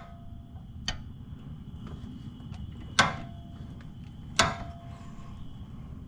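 Steel wrench clinking against the Jeep's track bar bolt and bracket as the bolt is worked loose: three sharp metallic clinks that ring briefly, the last two the loudest.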